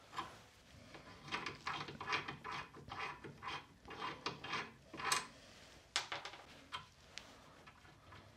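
Screw-type brake pipe flaring tool being turned to form an imperial flare on a brake line: a run of short rubbing, scraping strokes, about three a second, followed by a few light clicks.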